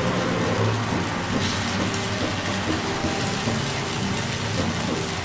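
Steady hiss over a low hum as vegetable-and-flour batter cooks in a hot, oiled frying pan on a gas burner while a steel ladle spreads it.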